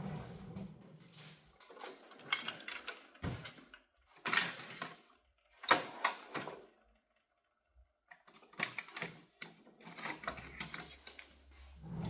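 Metal hand tools clicking and rattling in several short irregular bursts, with a brief lull past the middle: a second pair of safety wire pliers being picked up and handled.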